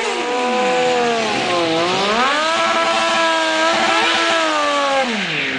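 Sportbike engine revving hard during a rear-tyre burnout: the revs dip about a second and a half in, climb and hold high and steady for a couple of seconds while the tyre spins, then drop away near the end.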